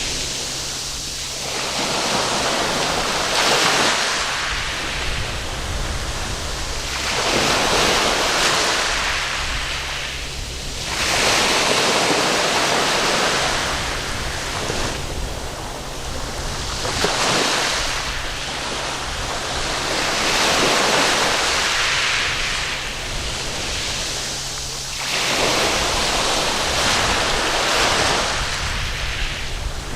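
Surf breaking on a sandy beach, the wash swelling and falling back in a new surge every three to four seconds.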